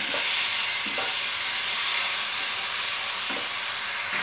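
Wet tamarind paste sizzling hard in hot oil in a kadai, a steady loud hiss, as it is stirred with a wooden spatula; a couple of faint knocks of the spatula against the pan.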